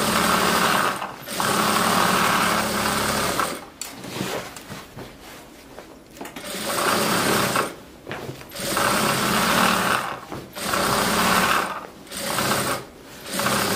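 Industrial straight-stitch sewing machine running in short bursts of one to two seconds, stitching a thick crochet rug slowly, stopping briefly between bursts. About four seconds in, it stops for nearly three seconds.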